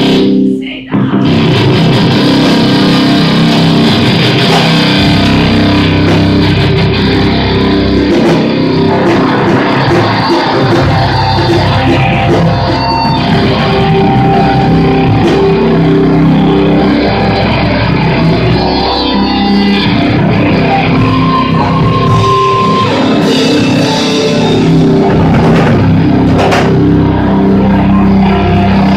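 Live heavy rock band playing loud, with electric guitars through amplifiers and a drum kit, and a short break just under a second in.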